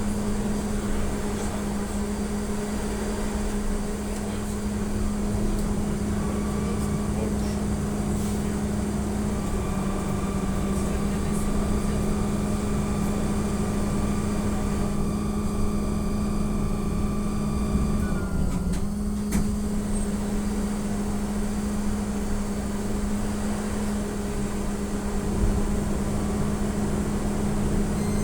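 Inside an AKSM-321 trolleybus under way: a steady electric hum with one constant low tone, plus a fainter, higher, even whine from the electric drive through the middle part, and a single click near the end.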